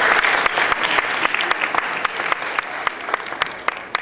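Audience applauding. The dense clapping dies away into scattered individual claps toward the end.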